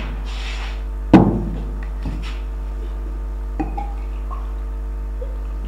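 Steady low electrical hum with one sharp knock about a second in, followed by a few fainter clicks.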